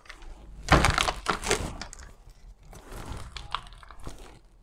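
Plastic packaging of a pack of marinated pork crinkling and rustling as it is handled open and the meat pulled out, loudest about a second in, with softer rustles a few seconds later.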